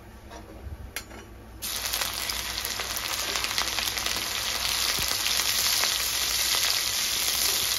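Chopped green chillies hitting hot oil and cumin seeds in a kadhai: after a few faint clicks, a loud sizzle starts suddenly about one and a half seconds in and keeps going steadily as the chillies fry.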